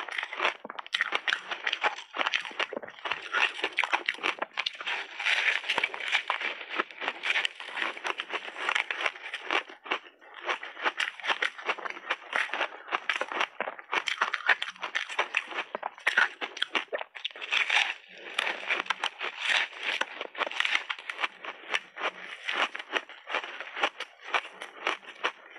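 Close-miked crunching and chewing of frozen layered ice cake: a dense, irregular run of crackling crunches, with brief lulls about ten and eighteen seconds in.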